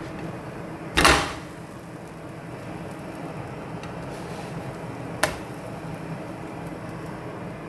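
A plastic spatula flipping pancakes in nonstick frying pans: a loud scrape and slap about a second in, then a shorter, sharper click a few seconds later, over a steady low background noise.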